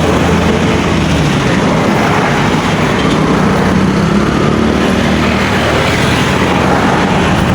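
Steady engine noise with a low hum under a broad rushing noise.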